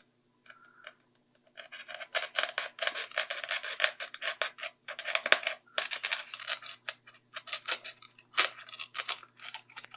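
Scalpel blade scraping and cutting through flexible glue along the wing-to-fuselage seam of a foam model plane, a quick run of short scratchy strokes starting about a second and a half in.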